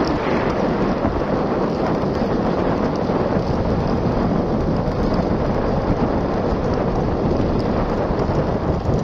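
Steady wind buffeting the phone's microphone, a loud, even, deep rushing noise with no pitched tone, as the camera moves along the road.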